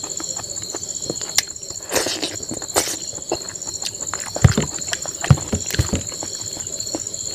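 Close-up eating sounds of rice and cooked greens being eaten by hand: chewing and lip smacking with irregular wet clicks, and fingers mixing rice on a steel plate. A few sharper smacks come a little past the middle.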